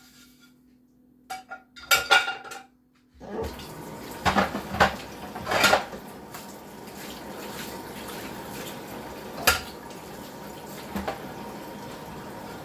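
Dishes and cutlery clinking as they are handled and loaded into a small countertop dishwasher. About three seconds in, a kitchen tap starts running steadily, with more clinks of dishes over the running water.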